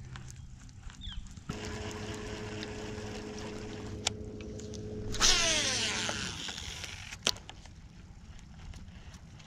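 Boat's electric trolling motor running with a steady hum that starts suddenly about a second and a half in. About five seconds in it winds down with a falling whine and a louder rush of water, then stops. A sharp click comes a second later.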